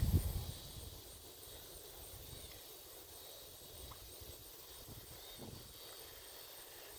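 Quiet outdoor ambience with a faint steady high hiss, opened by a low rumble on the microphone that dies away about half a second in.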